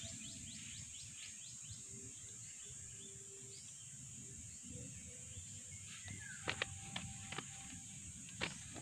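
Outdoor ambience of birds chirping: a quick run of short falling chirps in the first few seconds, then a few sharp chirps near the end, over a faint steady high-pitched hiss.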